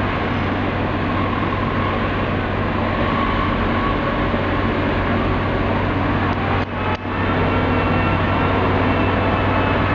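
Heavy mobile cranes' diesel engines running steadily under load as they hold a steel bridge section, a dense mechanical drone with a constant low hum. The sound briefly drops out twice about two-thirds of the way through.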